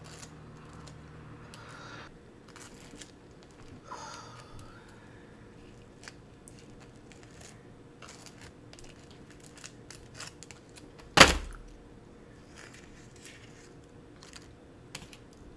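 A plastic knife scraping and spreading cream cheese onto a toasted bagel, with soft scrapes and small clicks as it dips into a small plastic cup of cream cheese. One sharp knock about eleven seconds in is the loudest sound.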